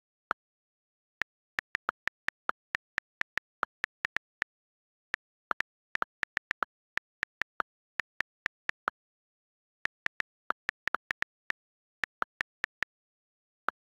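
iPad on-screen keyboard key clicks from typing. The clicks come in irregular runs of two to four a second, with short pauses between the runs and dead silence between clicks.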